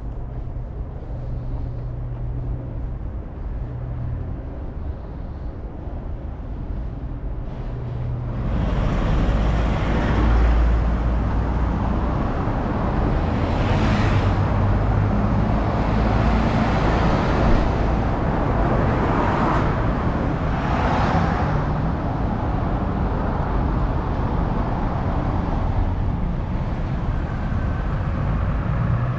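City road traffic: a low engine hum at first, then louder traffic from about eight seconds in, with several vehicles swelling past one after another.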